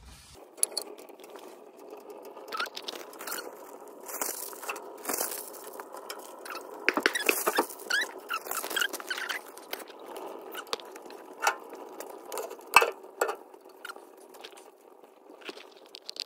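Crumpled newspaper and pine kindling catching in a small steel wood stove's firebox: the fire crackling with many irregular sharp snaps and pops. Paper rustles near the middle as more crumpled newspaper is handled.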